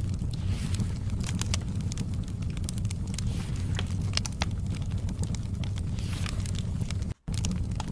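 Wood fire in a fireplace crackling: irregular sharp pops and snaps over a steady low rumble of the flames. The sound cuts out for a split second about seven seconds in.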